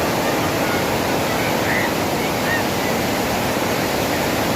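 Steady rushing of water, with a few faint short high chirps about one and a half to two and a half seconds in.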